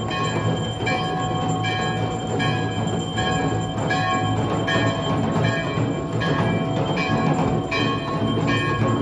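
Temple bells ringing in a steady rhythm, about one stroke every three-quarters of a second, with drumming and a continuous low rumble underneath.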